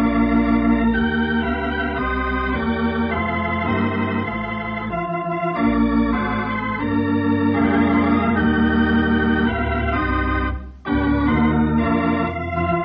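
Organ music playing the radio show's closing theme: sustained chords that shift every second or so, with a short break about eleven seconds in.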